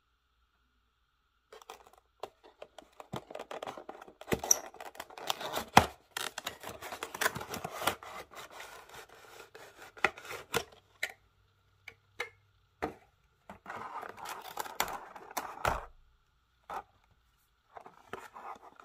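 Cardboard box, paper booklet and clear plastic tray of a die-cast model airplane being handled: rustling and rubbing in irregular bursts, with many sharp plastic clicks and a few short pauses.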